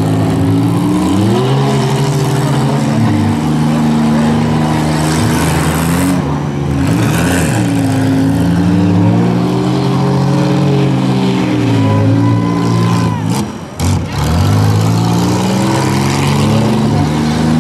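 Minivan engines revving hard under load as demolition-derby vans push against each other, pitch rising and falling. The engine noise drops out briefly about three-quarters of the way through, then picks up again.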